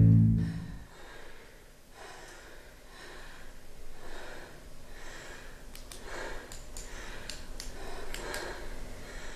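A low droning music note fades out within the first second. Then come rhythmic panting breaths, about one a second, from dancers out of breath after dancing, with a few faint clicks in the second half.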